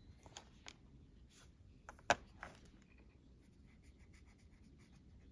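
Water-based marker strokes on paper, with a few light clicks and one sharp click about two seconds in, then a run of faint, quick short strokes near the end.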